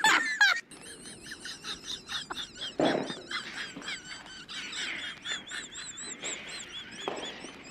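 Rapid high-pitched bird-like chirping: a fast run of short chirps, then, from about the middle on, a string of repeated rising-and-falling whistles. A brief, loud wavering cry sounds right at the start.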